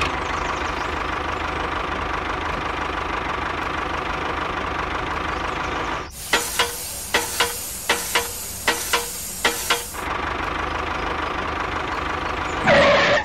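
Tractor diesel engine running steadily. About six seconds in it gives way to a hiss with a quick, irregular run of sharp knocks, about ten in four seconds, and after about ten seconds the steady engine sound returns.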